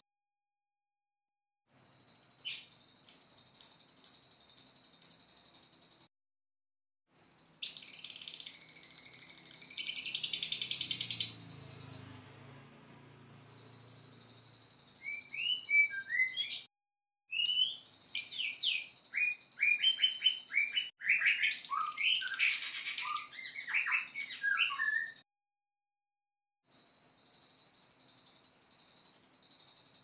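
Bird song from a white-rumped shama and a lovebird: a steady high trill in stretches that cut off abruptly into silence several times. Between about 15 and 25 seconds in, sharp quick chirps and rapid falling whistles are added.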